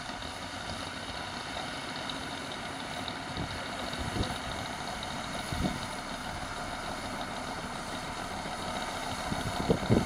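Caterpillar D6N bulldozer's diesel engine running steadily at a distance while the dozer pushes gravel, with a few brief knocks.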